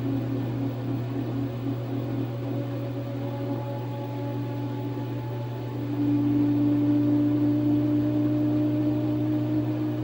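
Direct-drive top-load washing machine in its spin cycle, the motor and spinning basket giving a steady hum with a higher whine on top. The whine pulses at first, then about six seconds in it steadies and grows louder.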